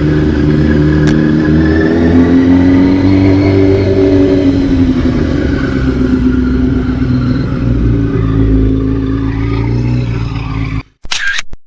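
Yamaha R6 sportbike's inline-four engine running at steady riding revs with road and wind noise; the revs rise a little and settle. Near the end it cuts off abruptly into a short camera-shutter sound.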